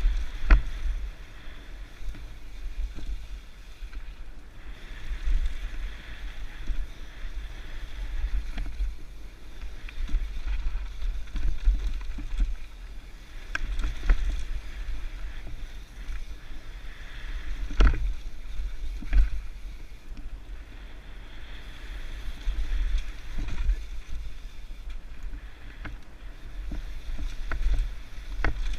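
Mountain bike riding down a dirt bike-park trail, heard through a ride-along action camera: wind buffeting the microphone with a low rumble, a steady rush of tyres on dirt, and several sharp knocks from bumps, the loudest a little past the middle.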